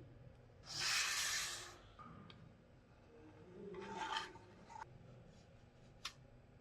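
Two short rubbing scrapes, the first about a second long and the louder, the second shorter a few seconds later, then a single sharp click near the end.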